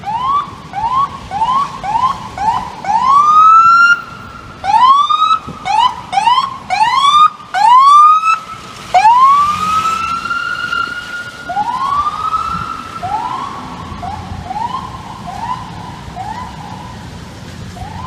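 Electronic emergency siren on an FDNY battalion chief's SUV, worked in quick repeated rising whoops broken by a few longer rising wails. It is loudest near the middle and then fades as the vehicle moves away.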